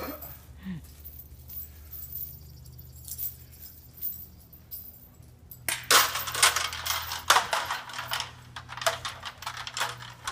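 Come-along hand winch being ratcheted: sharp metallic clicking and rattling in irregular clusters starting about halfway through, over a steady low hum.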